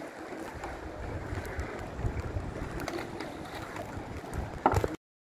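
Wind buffeting the microphone over the wash of the sea, with scattered small knocks. A louder knock comes near the end, then the sound cuts off suddenly.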